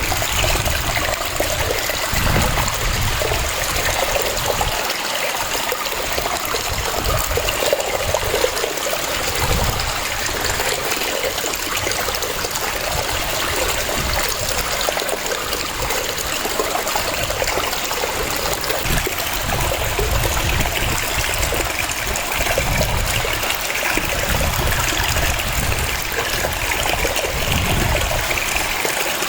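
Waterfall: water cascading and rushing in a steady, continuous wash of sound, with a low rumble that swells and fades every few seconds.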